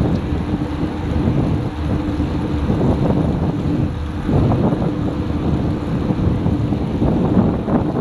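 Wind buffeting the microphone of a camera carried on a moving bicycle at about 28 km/h: a steady low rumble of rushing air, with a faint steady hum underneath.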